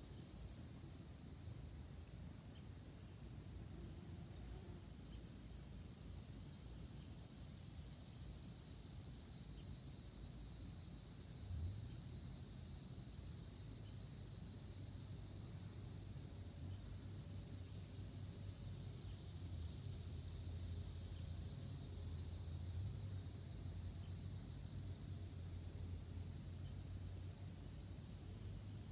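Faint, steady, high-pitched chorus of insects, over a low rumble that grows louder about twelve seconds in.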